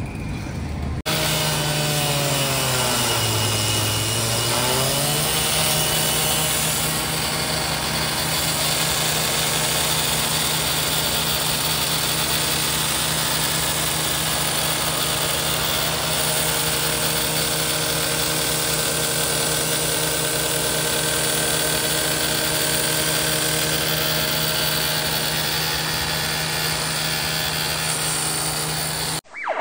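Small engine of a rescue cutting tool running at high, steady speed as crews cut into a railway coach body. About two seconds in, its pitch sags and then recovers, as under cutting load, before it holds steady again. It cuts off abruptly just before the end.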